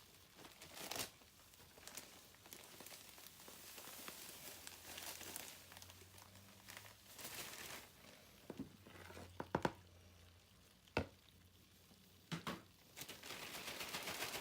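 Crinkling and rustling of packaging being handled, with a few sharp clicks in the second half and a denser rustle near the end.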